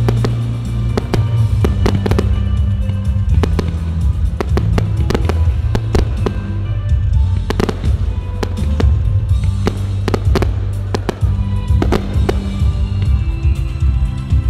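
Fireworks going off in frequent, irregular bangs and crackles, over loud music with a heavy held bass line.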